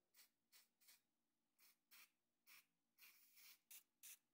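Aerosol spray can hissing in short bursts, about nine quick sprays with a longer one about three seconds in.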